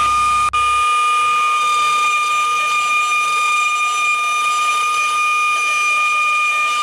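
CNC router spindle running with a steady high whine as the bit carves grooves into a wooden board. The sound breaks off for an instant about half a second in, and a low hum under it stops about a second in.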